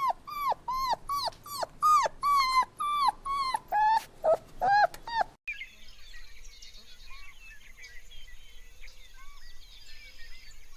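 A puppy whimpering and yelping over and over, high-pitched calls about two a second, each bending down in pitch. About five seconds in the sound cuts abruptly to a much quieter steady high hiss with scattered faint chirps and a few faint whimpers.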